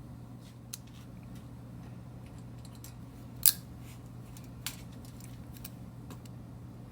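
A few sharp metallic clicks of locking pliers (vise grips) working the screws on a plastic truck grille, the loudest about three and a half seconds in and another about a second later, over a steady low hum.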